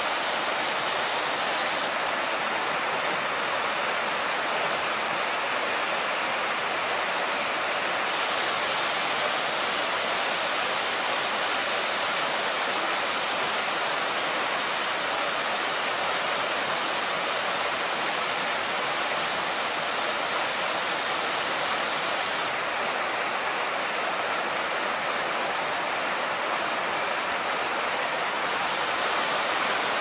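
River water rushing steadily over rocky falls and rapids, a continuous even roar of white water.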